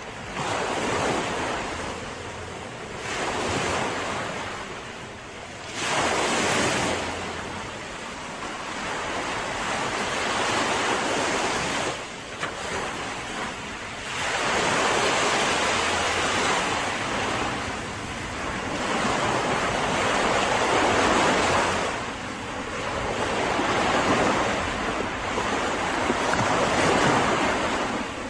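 Sea waves breaking on a beach, the surf swelling and falling back every few seconds.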